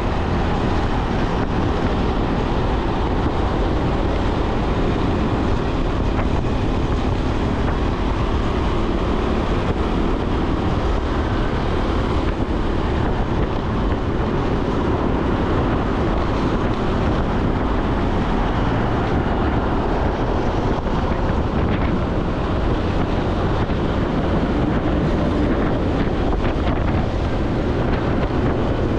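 Wind rushing over the microphone of a moving motorbike, with the bike's engine and road noise underneath, steady throughout.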